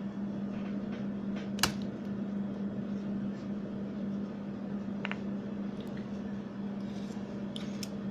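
Steady machine hum with a low droning tone. A sharp click comes about a second and a half in, and a fainter one about five seconds in.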